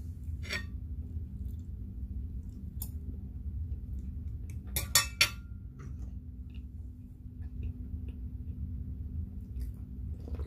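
Ceramic teacup, saucer and spoon clinking on the table: a few light knocks, with three quick sharp clinks about five seconds in, over a steady low hum.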